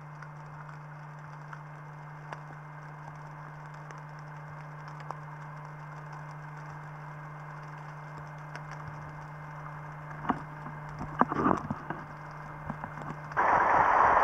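Underwater recording ambience through a camera housing: a steady low hum with scattered faint crackling clicks. About ten seconds in comes a short cluster of louder knocks and clicks, and near the end the sound switches suddenly to a loud rushing noise.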